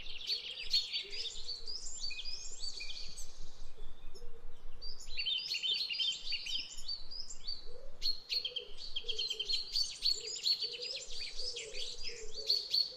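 Songbirds chirping and singing, many short, quick, overlapping calls, thinning to a brief lull about four seconds in before filling back in.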